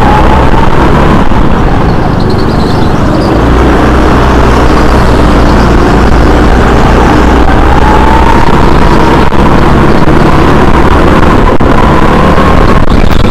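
Go-kart engine running hard close to the microphone, its pitch falling in the first couple of seconds, then climbing steadily over about five seconds as the kart accelerates, and dropping again near the end.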